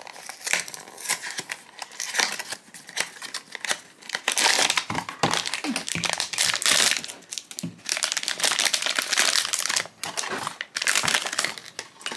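Foil blind-box bag being torn open and crinkled by hand as the figure is pulled out. Quieter rustling at first, with the crinkling loud and dense from about four seconds in.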